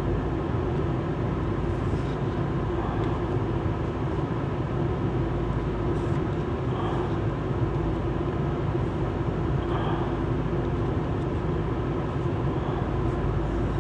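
Steady hum inside a car's cabin, with the engine or fan running, and a few faint slides of paper trading cards being moved on the console.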